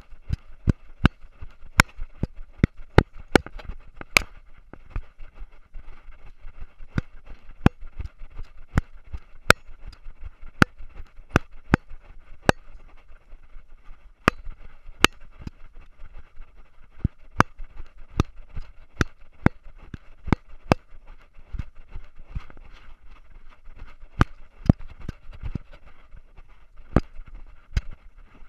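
A collar-mounted action camera and collar jostling as a dog runs, giving irregular sharp clicks and knocks, roughly two a second with a few sparser stretches, over a steady hiss.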